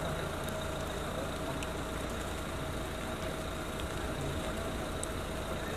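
Steady low hum of an engine idling, with a faint steady tone above it and a light hiss.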